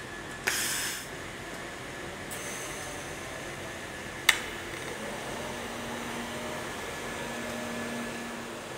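A short hiss about half a second in, then a sharp crack about four seconds in as the argon-shielded InFocus high-power TIG arc strikes at 255 A on 2 mm stainless steel, followed by the arc's steady hiss with a low hum.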